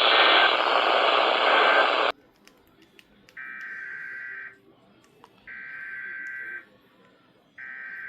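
A loud hiss that cuts off suddenly about two seconds in, followed by Emergency Alert System SAME header data bursts: a shrill warbling two-pitch modem screech lasting about a second, repeated at one-second gaps. Two full bursts play and a third begins near the end, the digital code that opens an EAS alert.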